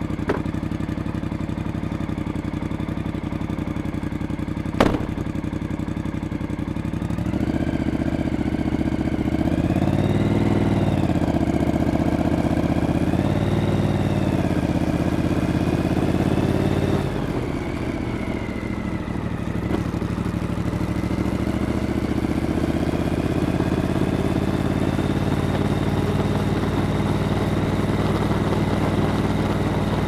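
Triumph Street Twin 900's parallel-twin engine running steadily at first, then pulling harder, its note rising and falling twice before dropping back. In the last third it climbs slowly and evenly. There is a sharp click about five seconds in.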